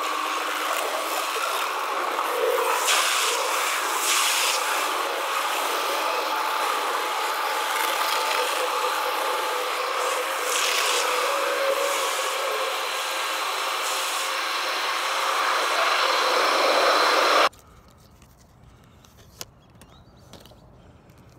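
Automatic car wash heard from inside the car: water spray and cloth brushes scrubbing over the windshield and body, a steady dense rushing and rubbing. It cuts off suddenly near the end, leaving a much quieter stretch with a few faint ticks.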